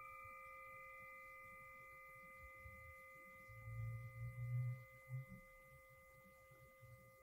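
A struck bell ringing out with several overtones, fading slowly. A few soft low thumps come about halfway through.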